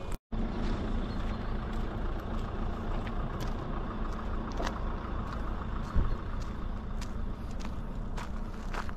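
Steady low rumble with scattered small crunches and clicks, from movement along a gravel track.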